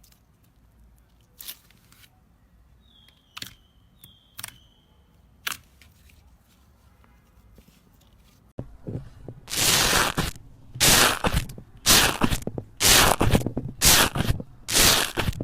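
Hands working slime: a few soft clicks and small squeaky pops. About eight and a half seconds in comes a sudden change to loud, noisy crackling presses that repeat about once a second.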